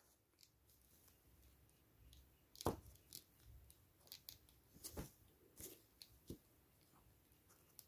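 Scattered faint clicks and taps of small plastic parts as a toy gun accessory is handled and pressed into a plastic action figure's hand.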